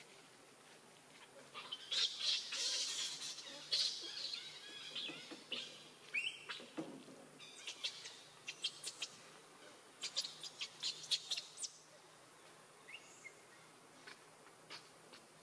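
Birds chirping: a burst of high twittering, then a run of short, sharp chirps, with a few faint ones near the end.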